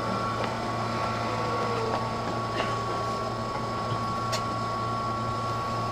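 Inside a Sotetsu Series 20000 train car standing at a station: steady hum of the air conditioning and onboard electrical equipment, with a constant high whine and a few small clicks. A faint falling tone fades out in the first two seconds as the train settles to a stop.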